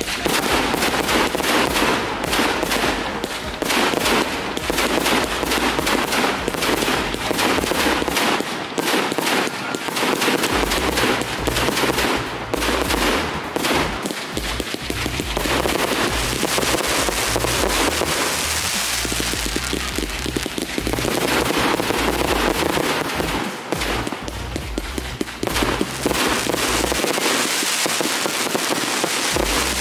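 Fireworks display: rapid volleys of bangs and crackling shells, densest in the first half, with music playing underneath.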